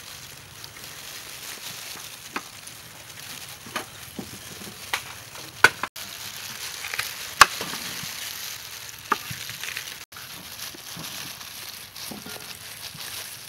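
Food-preparation handling sounds: a knife and peeler working through fruit, with about seven scattered sharp clicks and knocks against a wooden cutting board and a steel bowl over a steady hiss.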